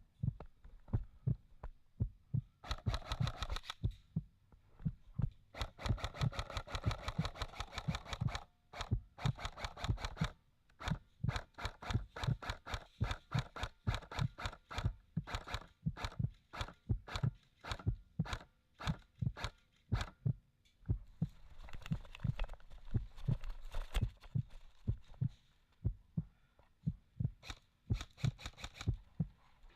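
Footsteps thudding at a walking pace, about two a second, with several bursts of fast clicking mixed in.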